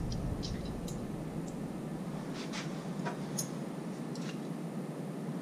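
A scattering of light metallic clicks and taps as the motorcycle shift shaft and its small parts are handled, over a steady low background noise.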